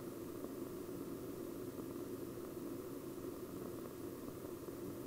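Steady faint hiss with a low hum underneath: the background noise of an old 1960s film soundtrack.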